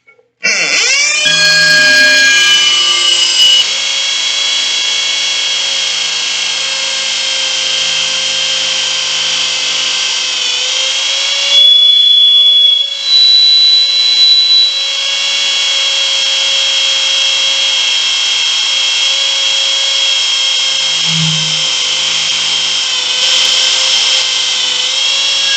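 Old corded hammer drill in hammer mode boring an anchor hole into a concrete floor, spinning up about half a second in and then running steadily under load. Near the middle it briefly gets louder and its pitch rises slightly before settling back.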